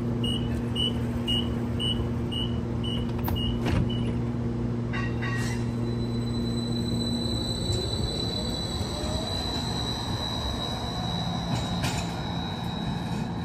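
Seattle streetcar's warning beeps, about three a second, stop about four seconds in and are followed by a two-note chime. The car's steady low hum then gives way to the whine of its electric traction motors rising in pitch as it pulls away from the stop.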